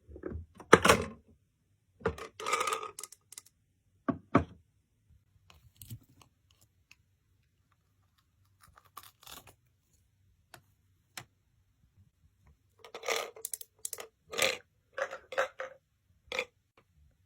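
Short taps, clicks and clatters of tiny kitchen utensils being handled, coming in a few clusters with quiet gaps between and a busier run of taps near the end.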